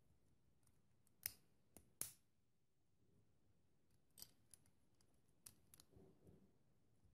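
Plastic building bricks clicking as they are pressed onto each other and handled. There are several sharp clicks, the loudest two near the start, and a soft rubbing of plastic near the end.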